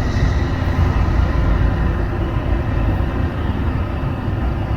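Jet airliner engines rumbling steadily, with a deep even noise and a faint high whine.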